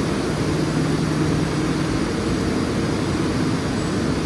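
Hergen Crescent Former tissue paper machine running: a steady, loud industrial drone with a low hum through it.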